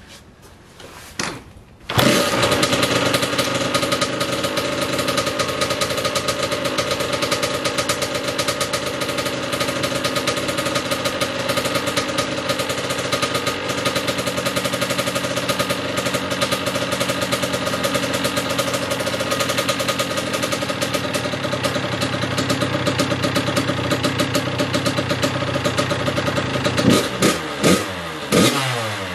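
2012 Kawasaki KX100 two-stroke single-cylinder dirt bike engine started for a warm-up, catching about two seconds in and then idling steadily. Near the end the throttle is blipped a few times, the pitch sweeping up and down.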